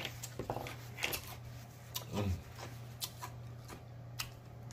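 A paper napkin rubbing over the lips, with scattered wet lip smacks and mouth clicks and one short falling hum from the throat about two seconds in, over a steady low hum.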